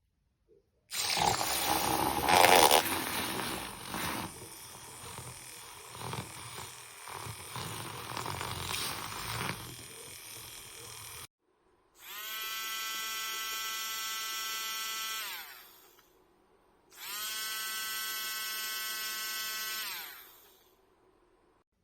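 Small electric motor of a handheld milk frother whirring in two separate runs of about three and a half seconds, each falling in pitch as it winds down. Before them comes a longer, louder stretch of irregular noise, loudest a couple of seconds in.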